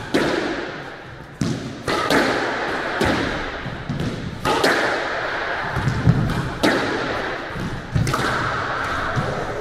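A squash rally: a string of sharp hits, one every second or so, as the ball is struck by the rackets and hits the court walls. Each hit rings out in the echo of the enclosed court.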